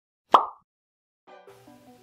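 A single short cartoon-style pop, the sound effect of an animated like button popping on screen, about a third of a second in. About a second later, background music with a melody and bass line begins.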